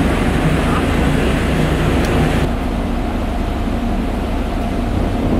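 Steady low rumble of wind buffeting the microphone, with the higher hiss dropping away about two and a half seconds in.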